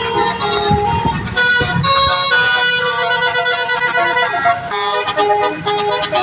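A bus's multi-tone 'telolet' horn playing a quick melody, several tones sounding together and changing pitch in steps. A low rumble runs under it for about the first two seconds.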